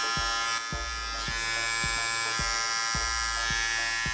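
Philips BT3203 cordless beard trimmer switched on and running: a steady motor buzz, quite noisy for a trimmer.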